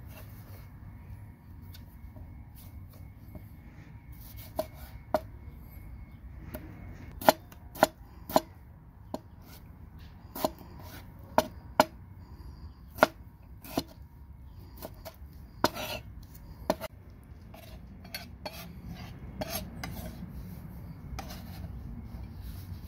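Broad-bladed knife chopping tomatoes on a plastic cutting board: irregular sharp knocks of the blade striking the board, starting a few seconds in, densest around the middle and thinning out a few seconds before the end.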